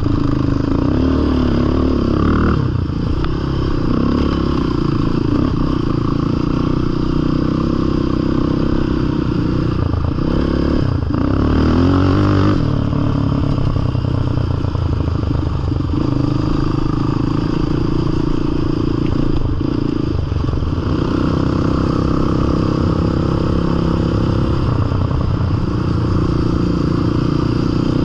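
Yamaha Raptor sport quad's single-cylinder engine running under way on a gravel trail, heard from onboard. The pitch rises and falls with the throttle and is loudest about twelve seconds in, over a steady clatter and scrape of tyres and suspension on loose gravel.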